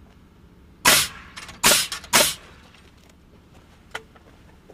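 Pneumatic framing nailer firing three nails into a wooden common rafter. The first shot comes about a second in, then two more close together.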